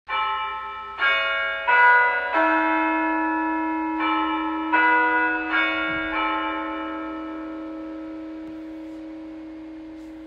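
Church bells struck about eight times in an uneven rhythm over the first six seconds, the later strokes sounding different notes, then left ringing and slowly dying away.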